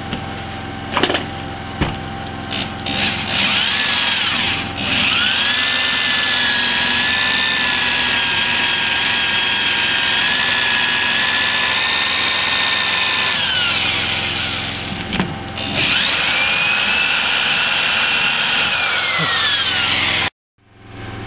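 Handheld electric drill boring a twist bit into a thick aluminium gearmotor housing. After a few short trigger bursts the motor whines steadily for about eight seconds and winds down. A second run of about five seconds slows near the end and cuts off abruptly.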